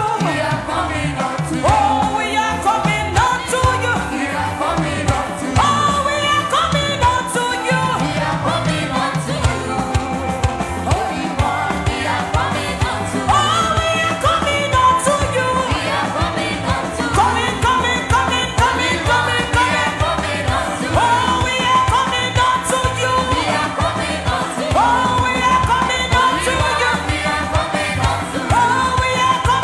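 Gospel worship music: voices singing over a band with a steady beat.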